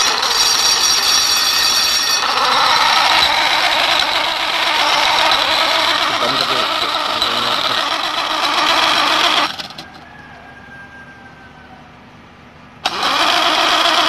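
Electric angle grinder with a diamond cutting disc running without load on a solar panel's supply, a steady whine and rush. It cuts out about nine and a half seconds in and starts up again about three seconds later.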